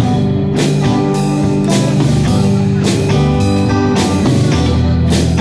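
A live blues band playing: electric guitars and bass over a drum kit keeping a steady beat with cymbal hits.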